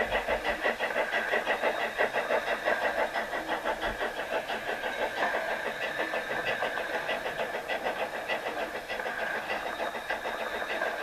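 Garden-railway model of the Harz Mallet steam locomotive 99 5906 running, its sound unit giving a steady rhythmic steam chuff of about four beats a second over a steady whine, slowly fading as the train draws away.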